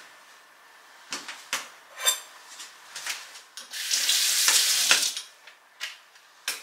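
Kitchen tap running into a sink for about a second and a half, the loudest sound, starting about four seconds in. Before it come a few light clicks and clinks of kitchen items.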